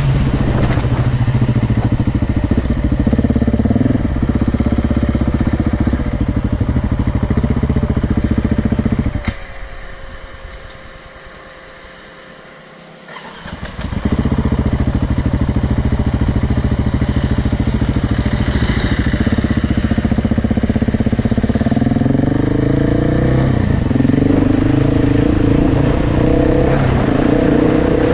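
KTM enduro dirt bike engine running hard under load, its pitch rising and falling with the throttle. About nine seconds in the engine sound falls away to a faint tone for about four seconds, then picks up again.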